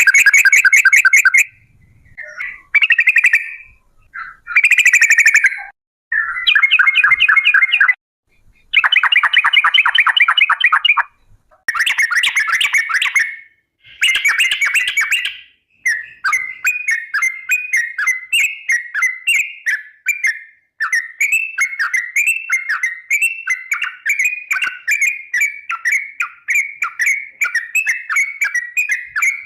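Yellow-vented bulbul (trucuk) singing long, rapid trills, the 'ropel' song: several separate bursts of fast rattling notes in the first half, then an unbroken run of quick repeated chirping phrases.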